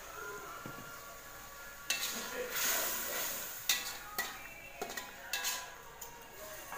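Metal ladle stirring and scraping through squid in a thick sauce in a metal wok, with several sharp clinks of metal on metal. The stirring starts about two seconds in.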